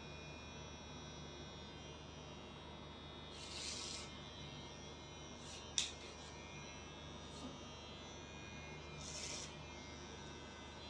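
Cordless electric hair trimmer running with a steady faint hum as it tapers hair at the nape. It grows briefly louder about four and nine seconds in as the blades pass through hair, and there is a sharp click a little before six seconds in.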